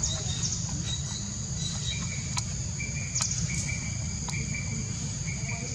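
Insects chirring in a steady high drone, with short repeated chirps and a few sharp clicks, over a constant low rumble.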